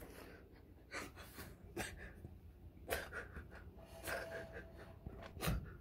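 Faint irregular knocks and rustles of a phone being handled close to the microphone, with a person breathing; the blender motor is not running.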